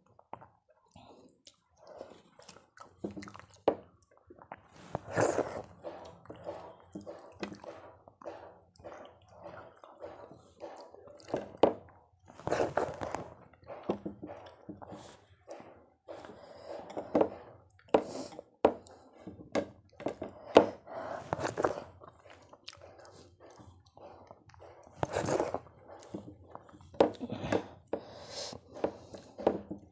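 Close-miked eating of khichuri and fried eggplant by hand: chewing and mouth sounds, with fingers working the soft rice and lentils on the plate. The sounds come and go irregularly, with short pauses between mouthfuls.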